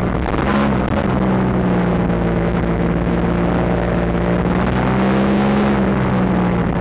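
Yamaha R1 sport bike's inline-four engine running steadily at cruise, its pitch holding nearly level with a slight rise about half a second in and a small drop near the end.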